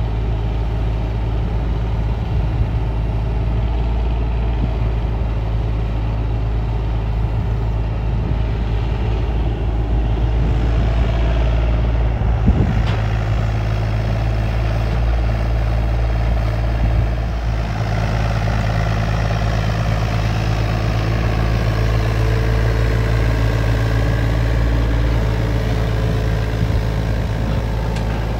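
Takeuchi TB325R mini excavator's diesel engine running steadily under working load as it digs and dumps soil. A single sharp knock about halfway through.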